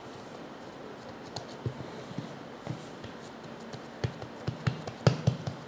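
Hands pressing and patting a ball of mince-stuffed naan dough on a floured worktop: soft taps and thuds, coming more often from about four seconds in.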